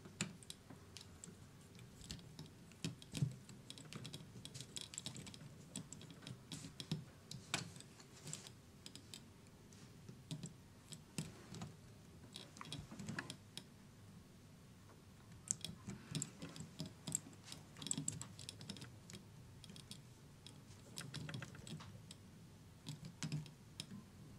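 Small screwdriver working a tiny screw into a model truck chassis, with the plastic parts handled by hand: faint, irregular clicks and taps in little clusters. The screw is not catching in its hole.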